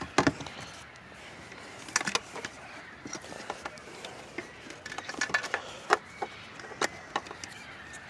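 Scattered light clicks and taps of a plastic wiring plug and light housing being handled while the connector is fitted: a few about 2 seconds in and a quick cluster near the middle.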